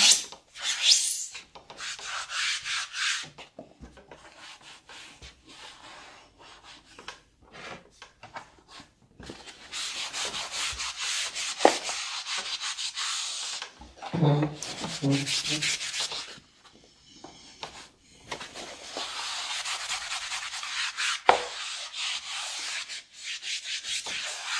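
Damp melamine foam sponge scrubbing the plastic case of a Macintosh 512Ke, a scratchy rubbing that comes in spells with short pauses between them.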